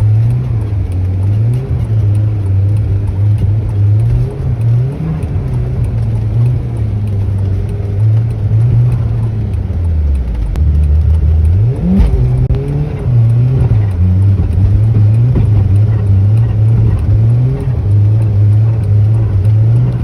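Audi A4 quattro's engine revving up and down repeatedly as the car is driven on snow, pitch rising and falling every second or two, with a deeper drop and then a quick climb about halfway through.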